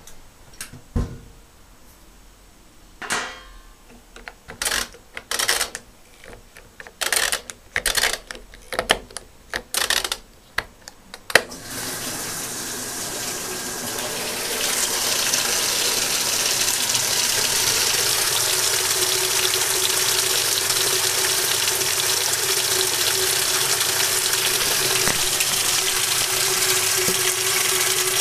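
A run of sharp clicks and knocks, then a 1996 Maytag Performa top-load washing machine's water inlet opens with a sudden steady rush of water filling the tub. The rush swells a few seconds later and then holds steady.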